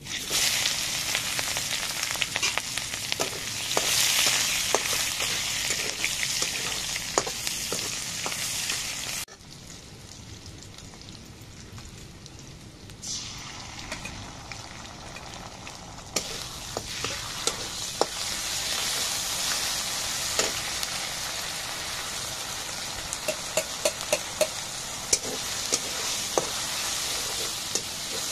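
Sliced onions sizzling in hot oil in a metal kadai; the sizzle starts suddenly as the food hits the oil, drops away for a few seconds about a third of the way in, then picks up again. Near the end a metal spoon stirs the frying onions and spices, clicking and scraping against the pan.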